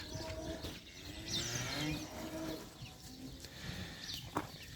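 Cattle mooing in drawn-out calls, with birds chirping in the background and a single sharp knock near the end.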